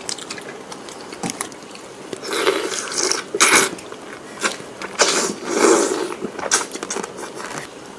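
Close-up mouth sounds of someone eating cooked frog: chewing and lip-smacking with many small clicks and a few louder wet bursts.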